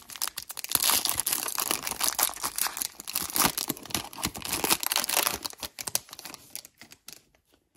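Foil wrapper of a Topps Merlin trading-card pack being torn open and crinkled, crackling densely for about five seconds as the cards are pulled out, then dropping away near the end.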